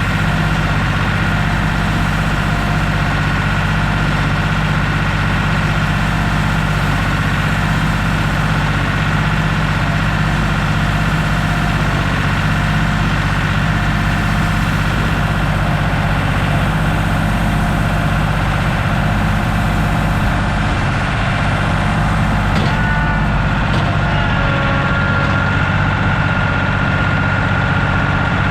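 Heavy engine running steadily at a constant speed, with a thin high whine coming up over it in the last few seconds.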